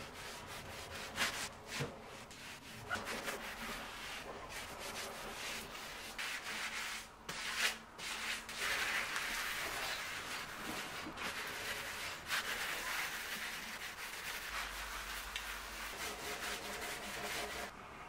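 Grout being rubbed and scrubbed across ceramic countertop tiles by hand: a steady gritty rubbing with a few light knocks.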